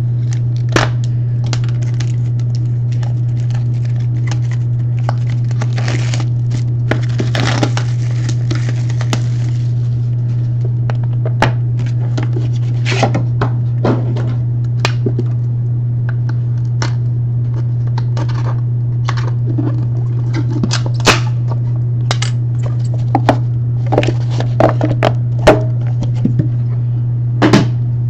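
Cardboard and packaging being picked and torn open with a key instead of a knife: scattered clicks and crackles, with a longer stretch of tearing and scraping about six to ten seconds in. A steady low hum runs underneath.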